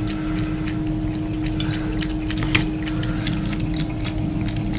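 Water running from a bathroom sink tap in a thin stream, with irregular small splashes as a cat paws and laps at it, over a steady low hum.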